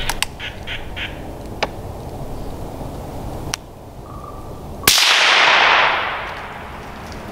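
Western gray squirrel barking in a few short calls about a second in, then a single loud rifle shot near five seconds in, its echo dying away over about a second.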